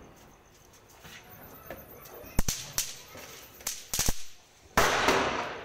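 Firecrackers going off: a run of sharp cracks in the middle, some close together, then a louder bang with a long echoing tail.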